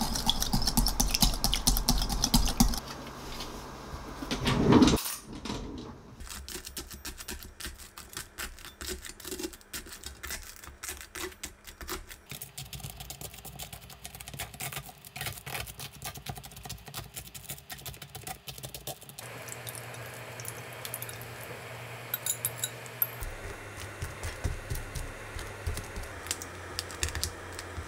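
French toast prep by hand: egg mixture whisked in a glass bowl for the first few seconds, a louder swish about five seconds in, then many light clicks and taps as toast pieces are set in a tray and pressed into the egg mixture with tongs.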